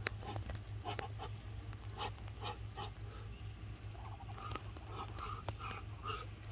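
A mixed flock of hens and Muscovy ducks calling, in short repeated calls about two a second, over a steady low hum.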